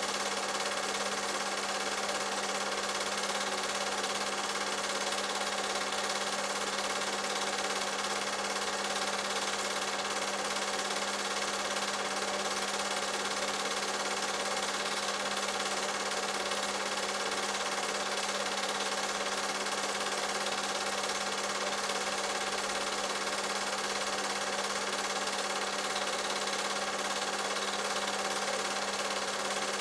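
Cine film projector running: a steady mechanical whirr over a constant hum, unchanging throughout.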